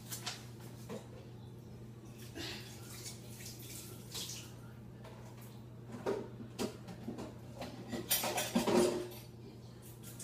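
Kitchenware handled out of sight: scattered clinks and knocks of dishes and utensils, growing into a busier clatter in the last few seconds, over a low steady hum.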